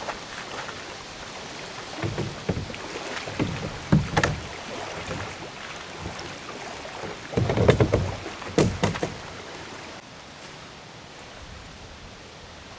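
Plastic hull of a Pelican Catch120 sit-on-top kayak knocking and scraping against the roof and rack of an SUV as it is lifted and pushed on. There are several separate thumps, the heaviest cluster about seven to nine seconds in.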